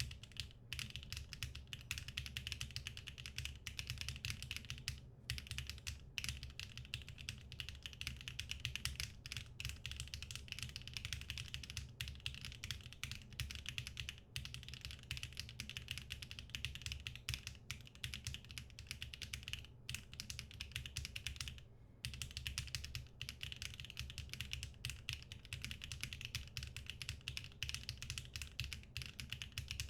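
Fast, continuous typing on a NEO65 mechanical keyboard with HMX Bamboo switches in an aluminum case with no foam inside, with brief pauses about five, fourteen and twenty-two seconds in.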